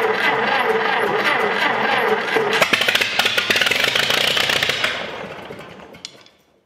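Minneapolis Moline M602 tractor's gasoline engine cranked on the starter. It catches and fires rapidly about two and a half seconds in, then dies away after a couple of seconds. It fires but won't keep running, which the owner puts down to fuel starvation at the carburetor.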